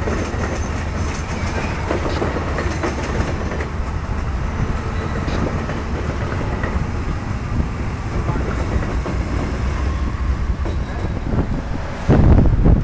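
Amtrak bilevel passenger cars rolling past over rail joints and switches: a steady low rumble of wheels on track with irregular clicking. About twelve seconds in, a loud burst of wind noise buffets the microphone.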